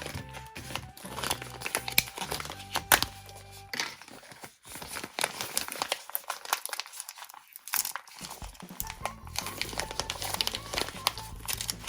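Toy packaging being crinkled and torn open by hand, a dense run of sharp crackles, over background music that drops out for a few seconds in the middle.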